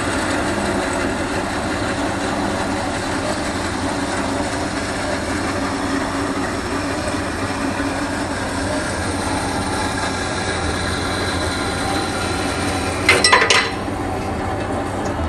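DoAll C-4 horizontal band saw running steadily on its 1.5 hp three-phase motor, the blade cutting through square steel tubing clamped in the vise. A short clatter of knocks comes near the end.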